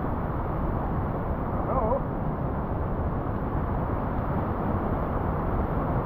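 Steady rushing of whitewater from a river drop and rapids close by, an even water noise that does not change.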